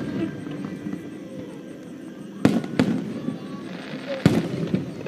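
Aerial firework shells bursting: two sharp bangs in quick succession about halfway through, then a third near the end, each trailed by a brief crackle.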